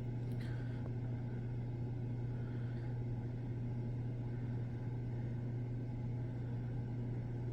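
Steady low machine hum over a noisy background, with a brief faint high chirp about a third of a second in.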